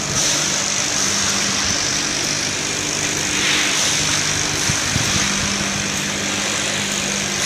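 Steady hum of running machinery, with a constant high hiss over it.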